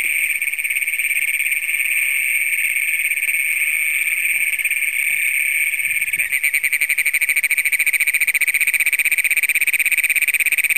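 Great Plains toads calling in a dense chorus: a continuous, shrill trill. About six seconds in, a toad close by starts its own trill, a rapid, even pulsing that stands out over the chorus.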